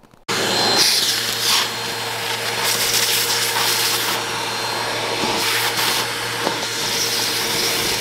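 Eureka Airspeed bagless upright vacuum running steadily, sucking through its hose and crevice nozzle as the nozzle is drawn along the carpet edge at the baseboard.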